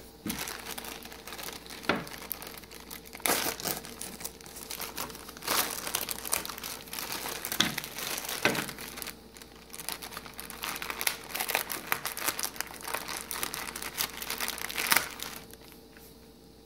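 Clear plastic bag crinkling and crackling as it is handled and pulled open, with many sharp irregular crackles. It goes quiet about a second before the end.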